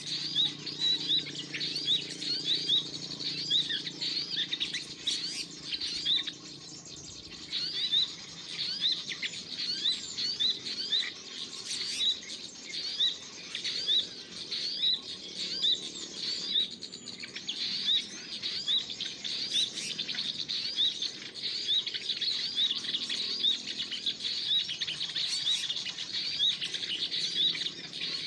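Small songbird's high, thin chirping call repeated steadily, about two to three short chirps a second.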